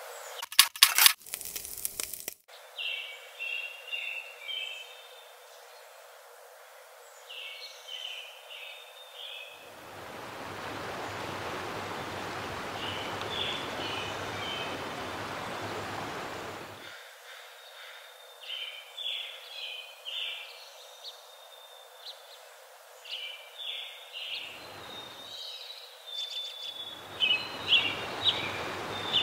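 Small birds chirping on and off throughout, with a few sharp knocks in the first couple of seconds and a steady hiss for several seconds in the middle. Near the end, chicken breasts searing in a hot skillet sizzle.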